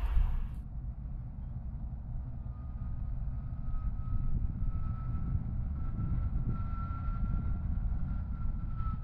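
Diesel shunting locomotive running with a steady low rumble. From a few seconds in, a faint whine rises slightly in pitch and then eases back down.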